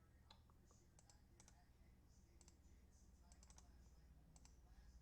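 Near silence with scattered faint clicks of a computer keyboard and mouse, some in quick pairs, over a low steady hum.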